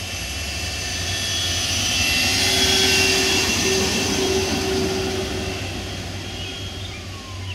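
Chrysler Turbine Car's gas turbine engine running as the car drives slowly past: a high whine and hiss that grows louder, peaks about three seconds in as the car passes, and fades as it moves away.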